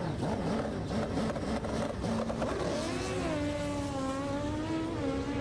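Top fuel dirt drag motorcycle's Kawasaki engine revving up and down at the start line, then launching: about three seconds in, the pitch climbs and holds high as the bike accelerates away.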